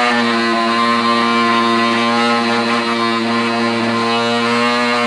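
SLITE 18 W mini linear electric sander pen running with its reciprocating tip pressed against clear plastic, making a loud, steady, evenly pitched buzz.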